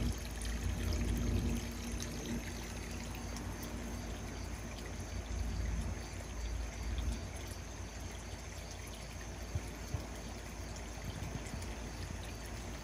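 Water pouring and trickling steadily into a pond, a continuous splashing stream, with a low rumble underneath that is strongest in the first couple of seconds.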